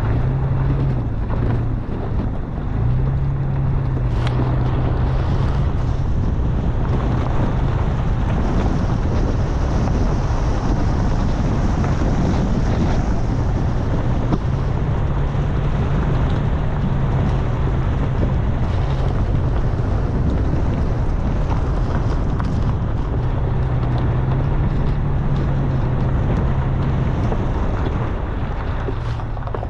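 A Toyota FJ Cruiser driving slowly over a rough dirt trail: a steady engine hum that shifts up and down between two pitches every few seconds, over the rumble of tyres on rock and gravel, with wind buffeting the microphone.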